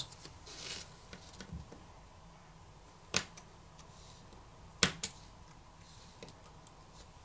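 Camera flex-cable connectors on a smartphone motherboard being popped off with a pry tool: a faint scrape, then a sharp click about three seconds in and a close double click about five seconds in.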